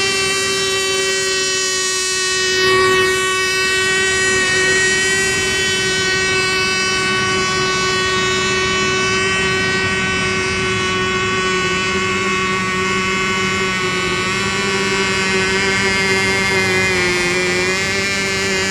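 High-revving motors of racing RC boats running flat out, a steady high-pitched whine with slight wavers in pitch.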